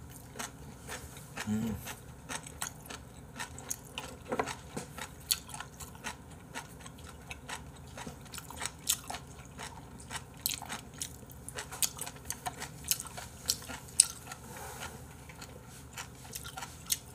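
A person chewing raw beef offal close to the microphone: a long run of irregular, crisp clicks and crunches from the mouth, one noticeably louder near the end.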